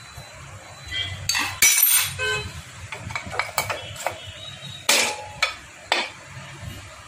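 Metal hand tools clinking and knocking against the Bajaj Pulsar 150's engine parts during repair work: a run of sharp metallic clinks, some with a brief ring, loudest about one and a half seconds in and again about five seconds in.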